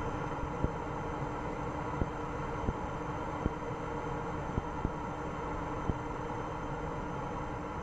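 Open mission-control voice loop between call-outs: a steady hiss with a low hum and a handful of sharp clicks at irregular intervals.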